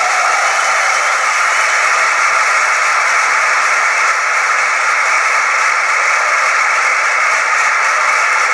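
A large audience cheering and applauding, a loud steady roar that swells up just before and holds without a break.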